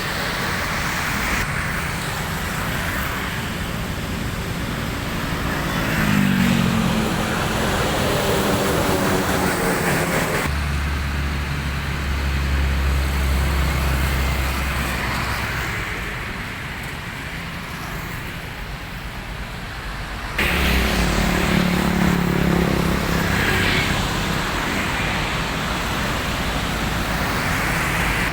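A motor vehicle engine running and being revved, its pitch rising about six seconds in and again just after twenty seconds. Between about ten and seventeen seconds a deep, steady low hum takes over, and the sound changes abruptly at about ten and at about twenty seconds.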